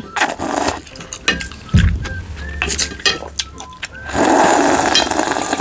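Slurping beef pares broth straight from a glass bowl: scattered mouth and utensil clicks, then a long loud slurp from about four seconds in, as the last of the broth is drained.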